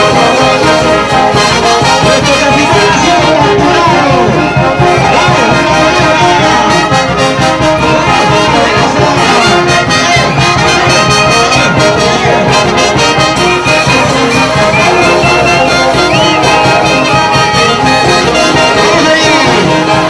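Live huaylash dance music from a wind band led by saxophones, several melodic lines played loud and without a break.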